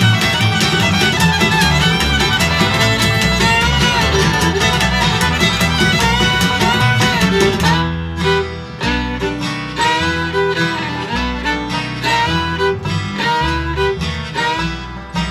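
Bluegrass band instrumental break: fiddle leads over guitar. About eight seconds in the fiddle drops away and a picked string-instrument solo takes over.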